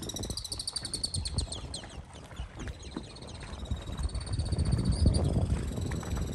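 Shrill, fast-pulsing animal calls repeating high in pitch, over a low rumble that grows louder in the second half.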